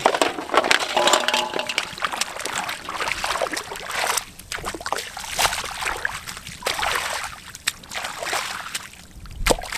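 Hands splashing and sloshing in shallow muddy rice-paddy water in irregular strokes, groping through the mud for fish, with one sharper splash near the end.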